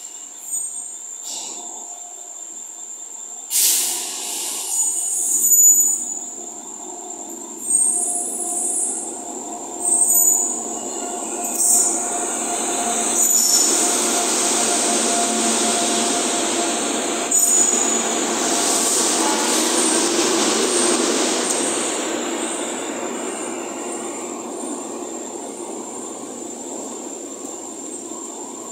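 Express train hauled by an electric locomotive running through a station. Several sudden loud sounds come as it draws near, then the steady noise of the locomotive and coaches passing on the rails, which slowly fades near the end.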